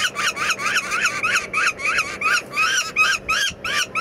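Downy peregrine falcon chick calling in rapid, repeated harsh calls, about five a second without a break, in protest at being held and leg-banded.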